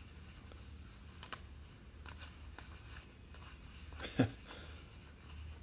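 Paper trading cards being flipped through by hand, a faint run of soft slides and small clicks as each card is moved from the front of the stack to the back, with a brief louder sound about four seconds in.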